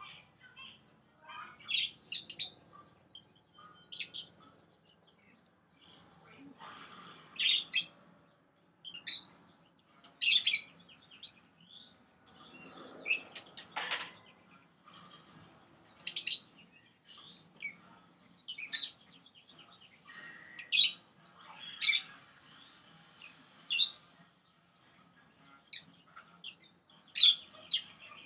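Caged pet parrots (a sun conure and budgerigars) calling: short, sharp high chirps every second or two over softer, continuous chattering.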